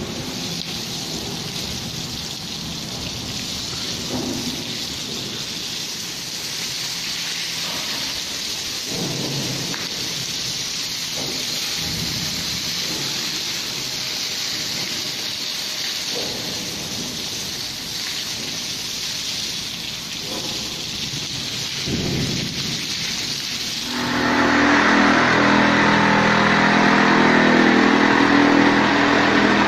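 A steady rushing hiss with a few soft knocks, then about three-quarters of the way in a motor-driven machine starts up and runs steadily and loudly with a low hum.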